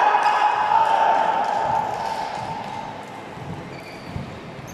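Voices in an indoor basketball hall dying down, then a basketball bouncing a few times on the court floor near the end.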